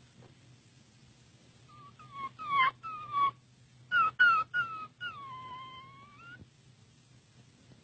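Cat meowing in a string of short, pitch-bending cries, then one longer drawn-out meow that dips and rises again.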